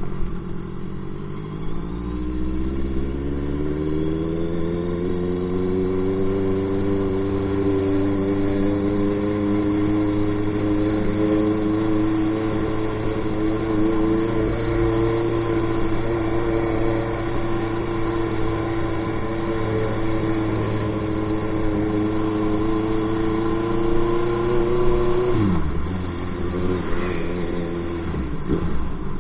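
Honda motorcycle engine heard from the handlebars while riding. Its pitch rises over the first few seconds as it gathers speed, then holds steady at a cruise. About 25 seconds in, the revs drop sharply, and the engine runs low and uneven near the end.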